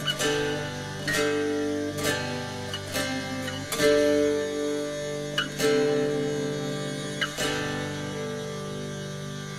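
Background music on acoustic guitar: chords struck about every one to two seconds and left to ring.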